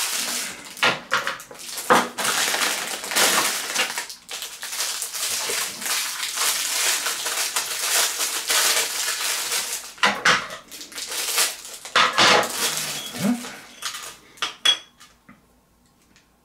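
Plastic packaging and small plastic figure parts being handled: steady crinkling and rustling with sharp clicks and clacks, dying away near the end.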